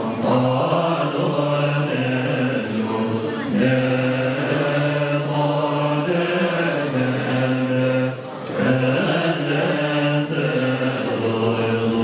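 Tibetan Buddhist monks chanting together in low, held tones, with a short break for breath about two-thirds of the way through.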